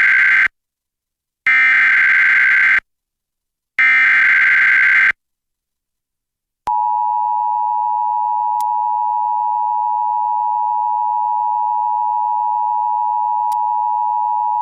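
Emergency Alert System SAME header: the end of one burst of digital data tones, then two more identical bursts about a second and a half long with short silent gaps between them. Starting about seven seconds in, the steady two-tone EAS attention signal (853 and 960 Hz together) sounds loud and unchanging to the end. It signals the start of a broadcast severe thunderstorm watch alert.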